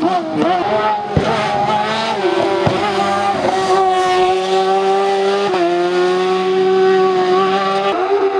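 Hillclimb race car engine running at high revs, its note held high and nearly steady, dipping briefly and picking up again several times. Two sharp cracks come in the first three seconds.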